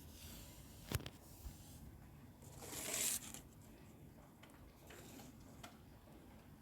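Faint handling sounds: a sharp click about a second in, a light tap just after, a brief rising rustle near the middle, and a few soft ticks.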